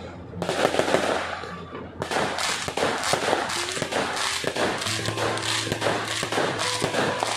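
Fireworks crackling and popping in rapid, dense succession.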